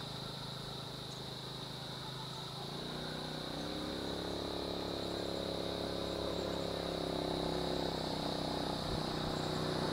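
A vehicle engine comes in about three seconds in, running at a steady pitch and slowly getting louder, over a steady high insect drone.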